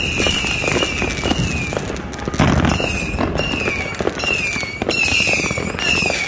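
Fireworks going off: a dense run of bangs and crackles, with a louder bang about two and a half seconds in. Over them, short high whistles that fall slightly in pitch repeat roughly every half second or so.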